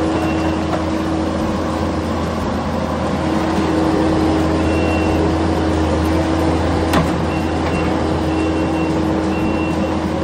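Diesel engine of a compact track loader running steadily as its bucket places hot mix asphalt into the trench, with a few short high beeps, most in the last few seconds.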